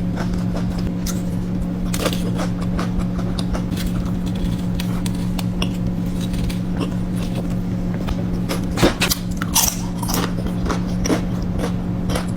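Close-miked eating: chewing and crunching with many short mouth clicks and crackles, a denser cluster about nine seconds in, over a steady low electrical hum.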